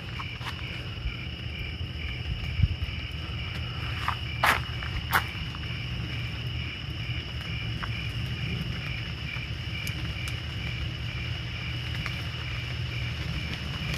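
Crickets and other insects chirping steadily in a high trill, one keeping a regular pulse of about two chirps a second. A few sharp clicks or snaps stand out about four and five seconds in.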